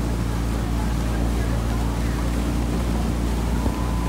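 Small motorboat's engine running steadily, a low even hum heard from on board, with wind and water noise over it.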